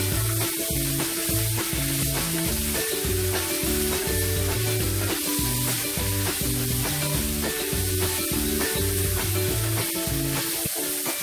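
Pork and mushrooms sizzling in hot oil in a frying pan as they are stir-fried, a steady frying hiss, with background music playing throughout.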